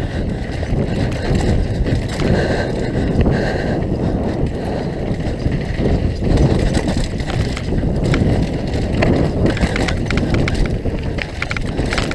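Mountain bike riding fast down a dirt singletrack, heard from a helmet-mounted camera: a steady rumble of tyres on the dirt with rattling and clattering from the bike, and wind on the microphone.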